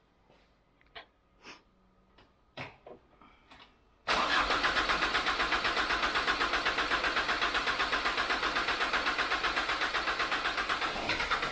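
Chevrolet Tracker's engine being cranked on the starter motor for about seven seconds, starting about four seconds in, with a fast even chug of about eight beats a second, without catching. The mechanic suspects air still in the freshly changed fuel filter is keeping it from starting. A few light clicks come before the cranking.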